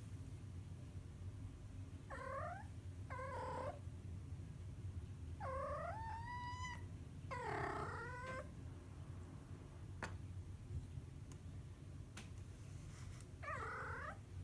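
Domestic cat making odd, strained meow-like calls, five in all: short ones that glide down in pitch, and a longer wavering one a little past midway, over a steady low rumble.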